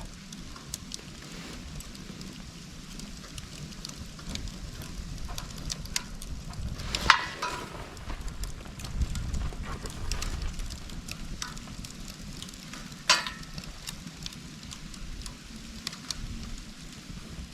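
Split dry bamboo bundled into a Swedish torch, burning with a steady low rumble and scattered crackling, and two louder sharp pops about seven and thirteen seconds in.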